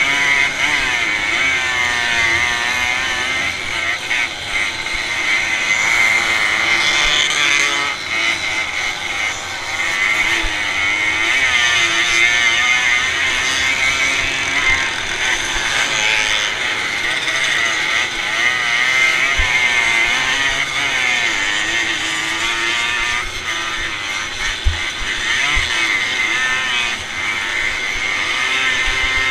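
Motocross bike engine running hard under the rider, its pitch rising and falling over and over with throttle and gear changes. Other bikes' engines run close by.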